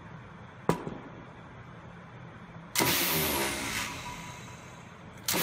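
Homemade grass trimmer's 775 DC motor spinning up its cutting blade in two short bursts, the first just under three seconds in and the second near the end, each starting suddenly and winding down with falling pitch. A single click comes under a second in.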